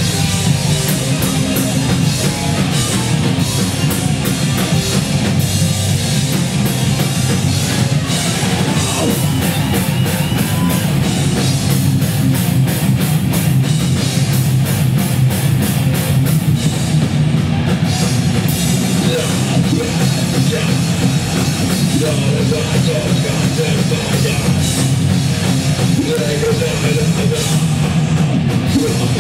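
Crust hardcore punk band playing loud live: distorted guitars and bass over a drum kit with cymbals, without a break.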